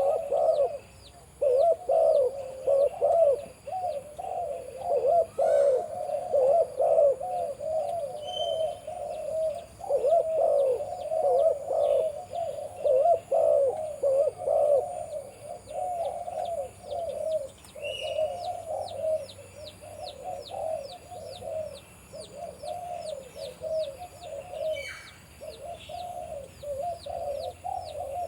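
Male spotted dove cooing over and over in a run of phrases, with only short pauses between them. Quick high chirps from small birds sound in the background.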